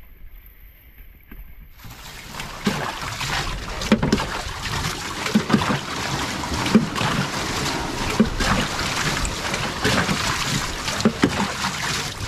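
Water splashing and sloshing as a plastic jug scoops water out of the swamped hull of an outrigger boat and pours it over the side: bailing. Irregular splashes start about two seconds in.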